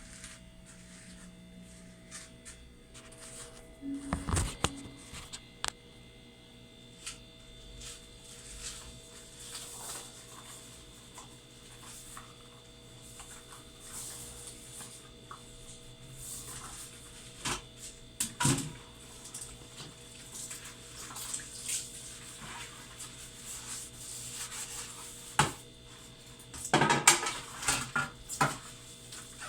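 Refrigerator humming steadily, with scattered clicks and knocks over it; a louder clatter comes about four seconds in and a quick run of rattling knocks near the end.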